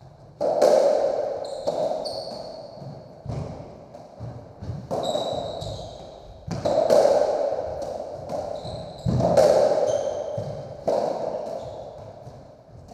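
Racketball rally on a squash court: the ball is struck by racquets and smacks off the walls, giving about ten hollow knocks, a second or two apart, that echo in the enclosed court. Short high squeaks of trainers on the wooden floor come between the shots.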